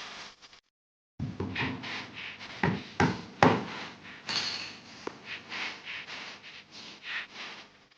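Furniture-making work noise: rustling and scraping with a few sharp knocks, the loudest about three seconds in, broken by sudden cuts.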